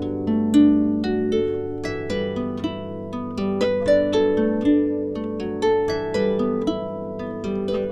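Background harp music: a flowing line of plucked notes, several a second, each ringing and fading over held lower notes.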